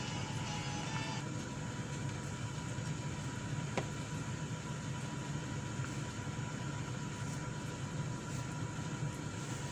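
Music trails off about a second in, leaving a steady low mechanical hum and whir from a running machine, with one faint click near the middle.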